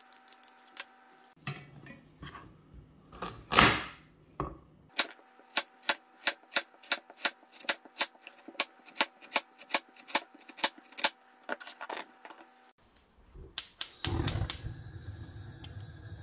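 Chef's knife slicing a carrot into rounds on a plastic cutting board: a steady run of sharp chops, about three a second. Before it, quick scrapes of a vegetable peeler on the carrot; near the end a gas burner's igniter clicks a few times and the flame burns with a steady low hiss.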